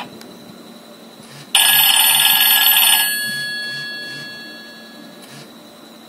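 Nokia 6111 loudspeaker playing a ringtone preview: a sustained electronic chord starts suddenly about a second and a half in, holds for about a second and a half, then fades out over the next two seconds.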